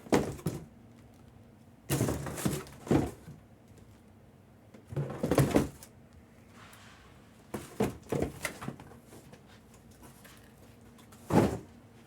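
Cardboard boxes being pulled from a case and set down on a table: several short bursts of knocks and thuds with brief scraping.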